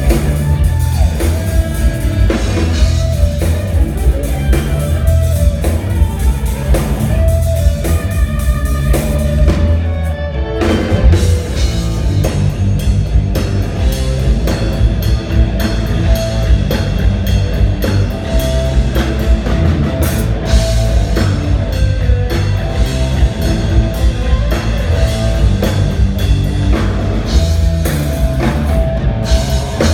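Rock music played by a band, with electric guitar over a drum kit keeping a steady beat. The music drops out briefly about ten seconds in, then comes back busier.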